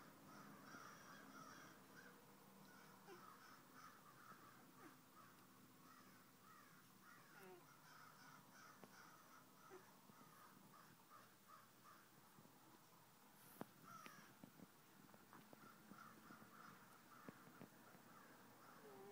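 A flock of crows cawing faintly, many short calls overlapping in a continuous chorus that thins out for a few seconds past the middle and picks up again near the end. A single sharp click about two-thirds of the way through.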